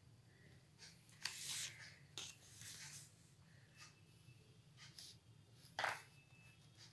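Pencil scratching on drawing paper in a few short strokes, the longest about a second in, with a brief louder rustle near the end. A faint steady low hum runs underneath.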